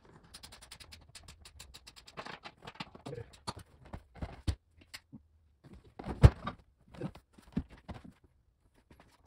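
Quick clicks and rattles, then a few knocks, as an aftermarket racing seat is handled on its slider rails in a C4 Corvette. The loudest is a sharp thump about six seconds in.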